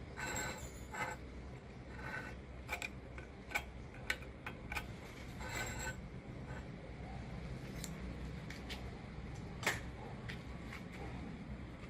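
Scattered light metallic clicks and clinks, a few ringing briefly, as small metal parts or tools are handled, over a low steady hum.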